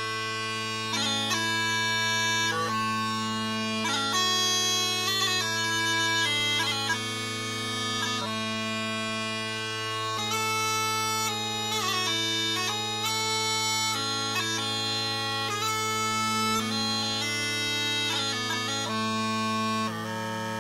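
3D printed Lindsay System Scottish smallpipes playing a slow strathspey: a chanter melody of held and shorter notes in the lower part of its range over steady, unbroken drones.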